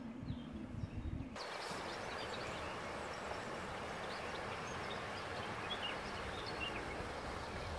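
Steady rushing of flowing river water, with small birds chirping faintly over it. It starts suddenly about a second and a half in, after a low rumble.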